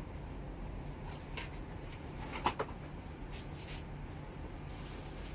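Steady low room hum with a few light clicks and rustles of garments and hangers being handled; the sharpest click comes about halfway through.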